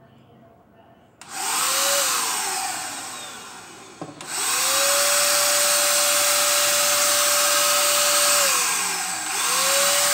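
Ingco cordless electric paint spray gun's motor and fan running as the trigger is pulled: a short spin-up that winds down, a click, then a steady run of about four seconds with a whine, which winds down and spins up again near the end.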